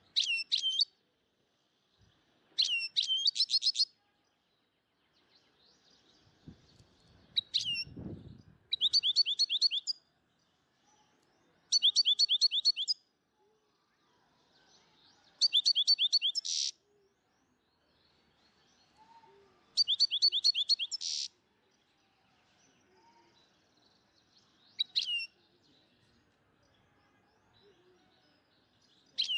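A small bird chirping in short, high trills of quick downward-sweeping notes, a burst of about a second every few seconds.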